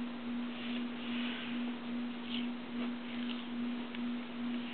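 A steady, low-pitched electrical hum, one pure tone that swells and fades about twice a second, with faint scratchy handling noises over it.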